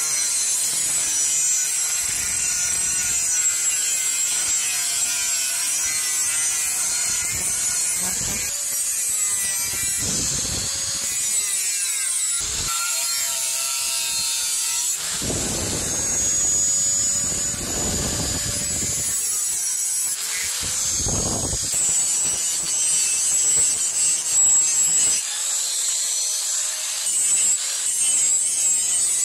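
Electric angle grinder cutting old disc-plough steel with a thin cut-off disc: a steady high hiss of metal being cut, with the motor's whine sagging and recovering as the disc bites. Near the end it grinds the rusty steel with a flap disc.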